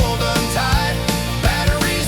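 Background rock music with a steady beat and a melody line.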